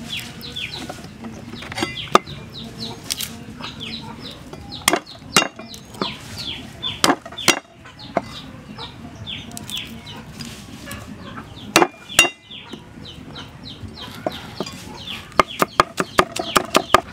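A cleaver knocking on a thick round wooden chopping block: single chops, then a quick run of about six chops a second near the end. Chickens keep up short falling chirps throughout.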